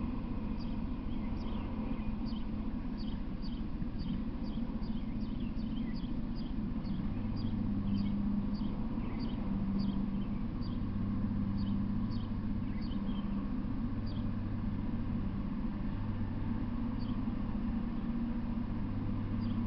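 Outdoor trackside ambience: a steady low rumble, with a low hum that comes and goes from about seven seconds in. Over it, short high chirps repeat several times a second, then thin out after about fourteen seconds.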